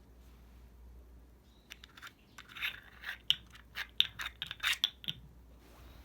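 A quick run of sharp crunches and clicks, starting about a second and a half in and stopping about five seconds in.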